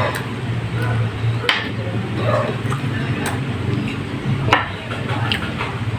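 Close-up eating sounds of a person chewing fried pork chop and rice eaten by hand: wet lip smacks and finger licking, with a few sharp smacking clicks, over a steady low hum.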